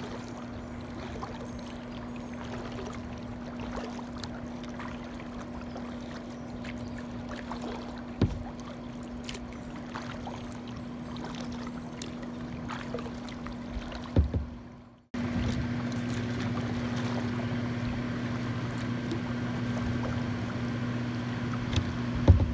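Kayak being paddled on a slow river: paddle strokes in the water over a steady low hum, with a few sharp knocks against the hull. The sound cuts out briefly about two-thirds of the way through and comes back louder.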